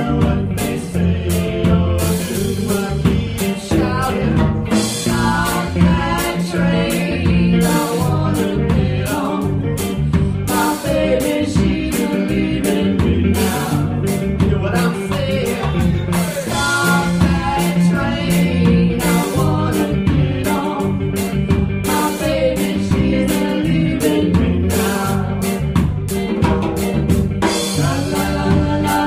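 Rocksteady band playing live: a woman singing lead over electric guitar and drum kit, with a steady low bass line.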